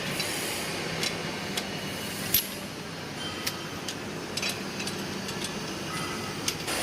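Magnesium oxide powder filling machine running: a steady mechanical hum and hiss with scattered sharp clicks and knocks, the sharpest about two and a half seconds in.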